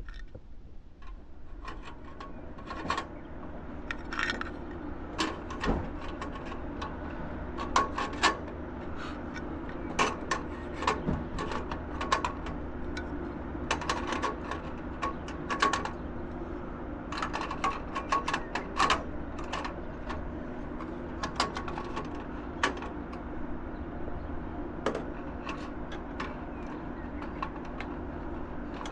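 Irregular metallic clicks and clinks of hand tools and small metal parts being handled, over a steady low hum.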